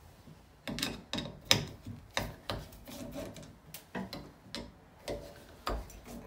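Screwdriver turning out the brass screws on a Kohler shower mixing valve: a run of irregular short scrapes and clicks of the tip working in the screw heads. The sharpest click comes about a second and a half in.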